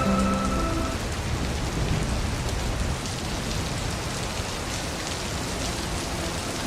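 Steady rain falling into a puddle, with a low rumble of distant thunder underneath.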